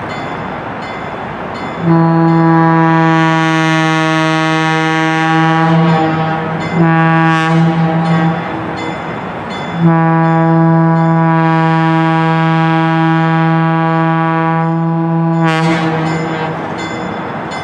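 Western Pacific 913, an EMD F7A diesel locomotive, sounding its air horn as it approaches: a long blast, a short blast, then a long blast.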